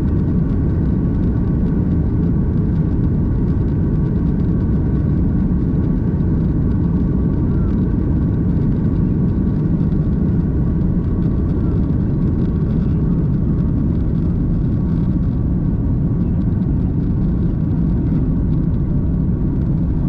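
Airbus A330-300 taking off, heard from a window seat inside the cabin: the engines' steady, loud rumble at takeoff power with a faint steady whine above it, through the takeoff roll and climb-out.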